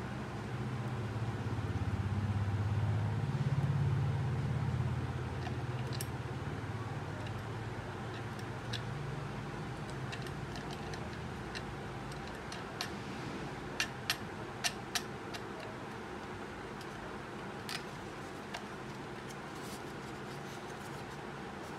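Scattered sharp clicks and taps as a metal mounting bracket and thumb-screw are handled and fitted onto a plastic horn speaker, a cluster of them near the middle. A low rumble swells and fades over the first few seconds.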